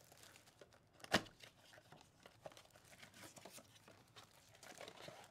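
Cardboard blaster box of trading cards being torn open, with one sharp rip about a second in, then the cellophane-wrapped packs inside crinkling as they are handled and pulled out.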